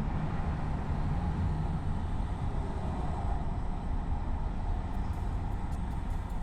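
Steady low rumble of a car driving, tyre and engine noise with no sudden events. Faint high ticks come in near the end.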